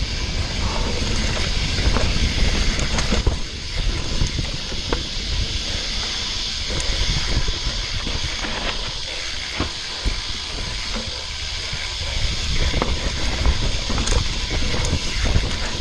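Mountain bike descending a rocky trail: a steady hiss of wind on the camera's microphone over rumbling tyres, with frequent short clicks and knocks as the bike rattles over rocks and roots.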